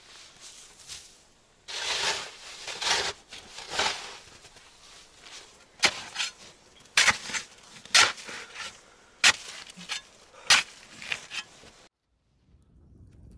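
Snow shovel scraping and scooping snow: a few long scrapes at first, then a series of short sharp hits about once a second.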